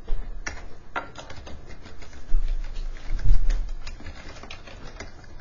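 Computer keyboard keys being typed, a few separate keystrokes spaced irregularly. A low rumble or thump sounds about halfway through and is the loudest part.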